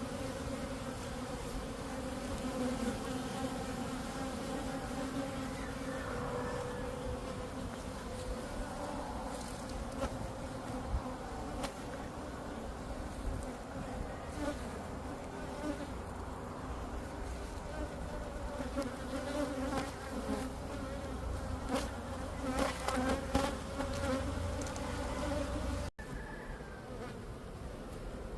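Many honeybees buzzing together in a steady, wavering hum, with a few light ticks partway through. The buzzing drops out for a moment near the end and then carries on quieter.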